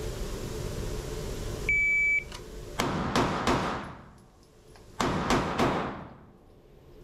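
A shot timer's start beep about two seconds in, then a pistol firing three quick shots, a pause of about a second and a half while the gun changes hands, and three more quick shots, each echoing off the indoor range.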